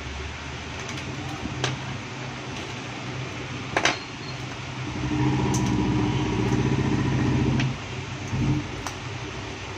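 Low, steady hum of a motor vehicle's engine running, growing louder about five seconds in and dropping back suddenly a little before eight seconds. A single sharp click sounds just before four seconds.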